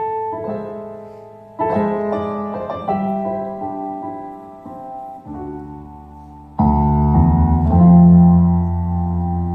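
Live band playing a slow piano introduction: sustained piano chords struck every second or two, with deep bass notes coming in and the music growing louder about two-thirds of the way through.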